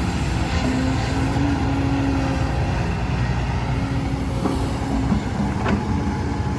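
Engine of a truck loaded with soil, running steadily as it drives. Its note drops to a lower pitch about five seconds in.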